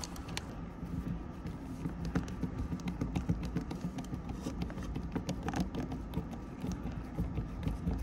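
Hand screwdriver driving screws back into a dishwasher drain pump's metal mounting: a run of small, irregular clicks and taps.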